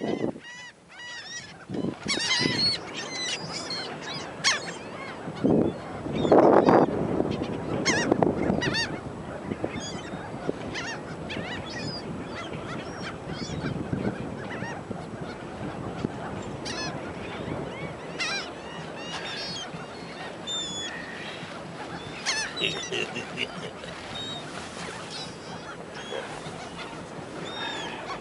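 A flock of gulls calling: many short, overlapping squawks and cries, some louder bursts around two to nine seconds in.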